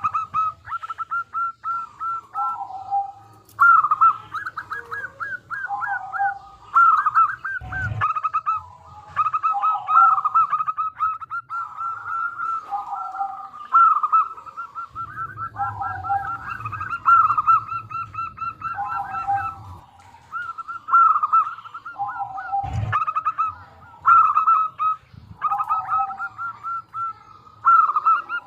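Zebra dove (local perkutut) cooing over and over. Each phrase is a quick rolling run of notes that drops to a lower note, repeating about every two seconds. Two sharp knocks come about a third of the way in and again near the end.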